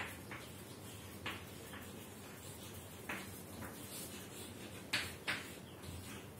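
Chalk writing on a chalkboard: short scratches and taps of the chalk against the board, coming a stroke or two at a time at irregular intervals, the two loudest about five seconds in.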